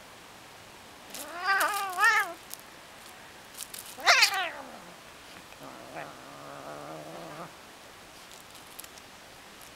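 Tabby cat meowing three times: a wavering two-part call, then a sharp call falling steeply in pitch, then a lower, drawn-out call.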